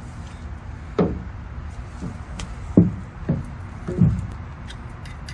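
Four hollow knocks of PVC pipe and fittings being handled, each with a short ring that falls in pitch, over a steady low rumble.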